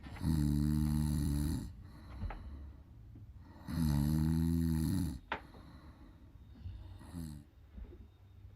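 A sleeping woman snoring: two long snores about three and a half seconds apart, each lasting about a second and a half, then a short one near the end.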